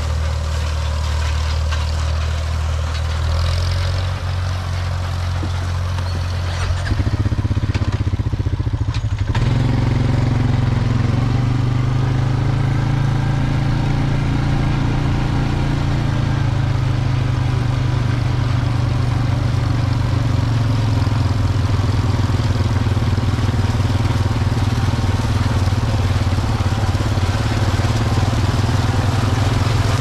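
An engine idling low and steady, then picking up speed about nine seconds in and running on steadily at the higher speed, as a vehicle gets under way.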